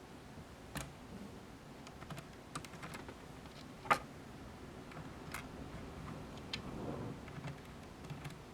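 Scattered light clicks and taps of acrylic case parts and small hardware being handled and fitted together, at irregular intervals, with one sharper click about four seconds in.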